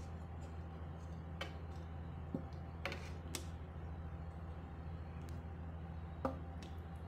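Metal spoon clinking against a steel plate and pan while fish pieces in mustard curry are spooned out: about five sharp separate clicks, the loudest near the end, over a steady low hum.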